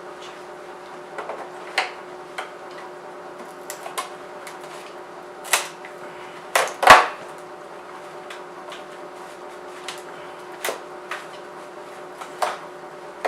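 Irregular sharp clicks and snaps of metal shears cutting away the leftover lens from a headlight housing, loudest as a pair of cracks about seven seconds in, over a steady faint hum.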